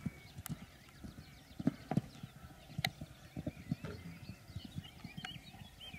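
Hoofbeats of an Irish Draught mare cantering on an arena's sand surface: a quick, uneven run of dull thuds of its strides, thinning out in the second half as it takes a fence.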